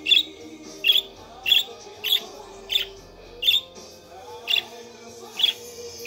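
Budgerigar giving about eight short, sharp, high chirps, spaced half a second to a second apart, over music playing softly.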